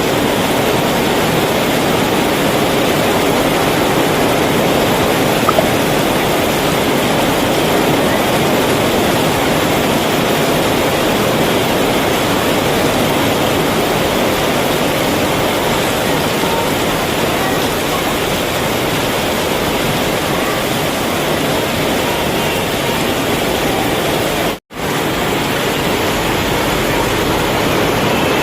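Heavy rain falling in a steady, loud hiss that cuts out for a split second near the end.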